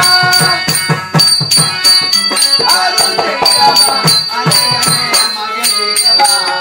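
Therukoothu folk-theatre music: a performer sings over a harmonium and a barrel drum played in a steady beat of several strokes a second, with small cymbals clicking in time.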